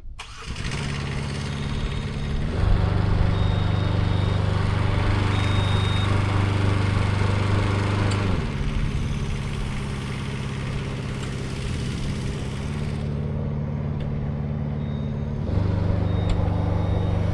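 Engine of a CMC 72HD tracked aerial lift running steadily, speeding up about two and a half seconds in, dropping back around eight seconds, and speeding up again near the end.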